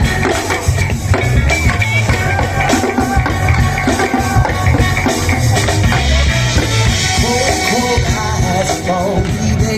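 Rock-style dance music with a drum kit beat.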